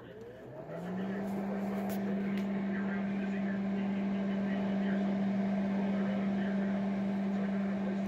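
A 1979 Litton microwave oven starting up and working again after its failed door switch was replaced. A hum rises in pitch over about half a second, then settles into a steady loud hum with a rushing fan noise as the oven runs.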